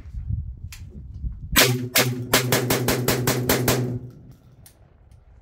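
Tokarev TT12 semi-automatic 12-gauge shotgun fired in a fast string of shots, about five a second for over two seconds, starting about a second and a half in. A steady low hum sounds under the string and stops with it. A couple of single sharp reports or clicks come before the string.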